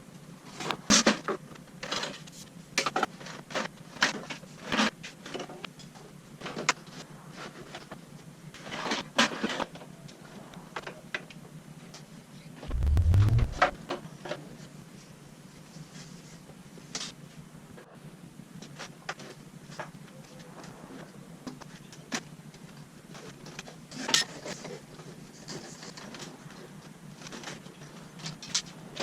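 Irregular clicks, knocks and clatter of objects being handled, with one dull low thump about halfway through.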